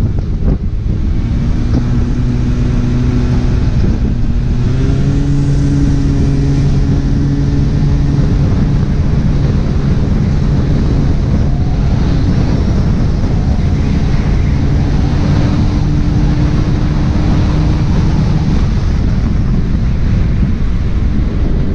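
Small scooter engine running at a steady speed while riding, its note stepping up a little about four and a half seconds in and then holding even. Wind buffets the microphone throughout.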